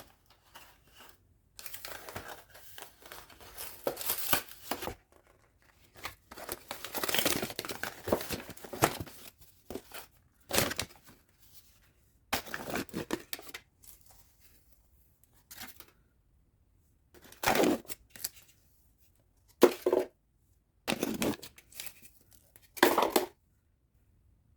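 Packaging being torn open and crinkled by hand: rips and rustles in bursts, two longer stretches in the first ten seconds, then about half a dozen short separate rips.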